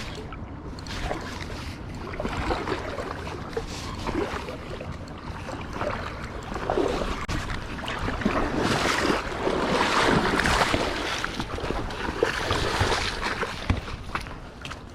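Water splashing and rushing with wind buffeting the microphone, swelling to its loudest a little past the middle and easing toward the end.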